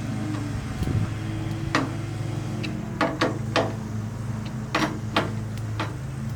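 Sharp metallic clicks and knocks, several in quick pairs, from hand work on a pickup's door latch assembly as it is fitted inside the door, over a steady low hum.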